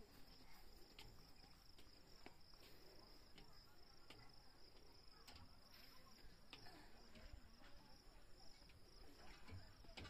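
Near silence with a faint, steady high-pitched insect trill and a few faint ticks.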